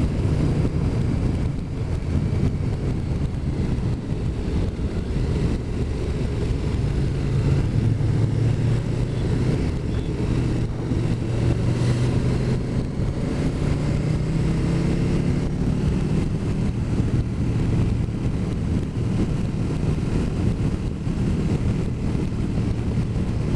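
Motorcycle engine running on the move with wind rushing over the microphone; the engine note rises a little about halfway through.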